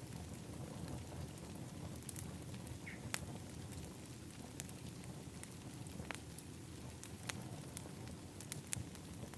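Wood fire in an outdoor fire pit crackling: scattered sharp pops at irregular intervals over a steady low rumble.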